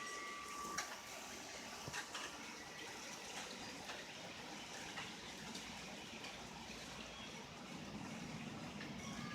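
Rain falling steadily, a continuous hiss with scattered sharp taps of drops striking a nearby surface.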